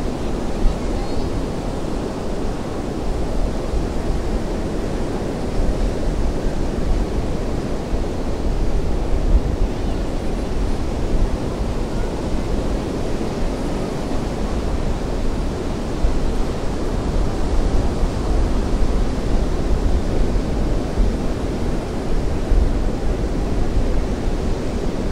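Ocean surf breaking steadily, with wind on the microphone.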